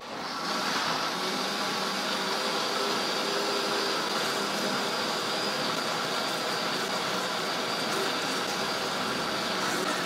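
Countertop blender spinning up and then running steadily, blending a runny pão de queijo batter of eggs, milk, oil, cheese and starch, with a faint high whine over the motor's steady noise.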